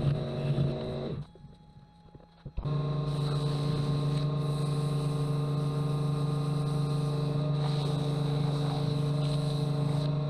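Wood lathe running with a steady motor hum while sandpaper hisses against the spinning ash vessel. The sound drops out for about a second and a half near the start, then returns. Near the end the motor spins down, its pitch falling.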